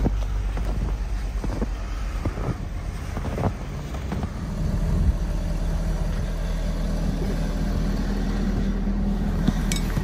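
Steady low hum of a vehicle engine idling, with a few crunching footsteps in deep snow in the first few seconds and some sharp scraping clicks near the end.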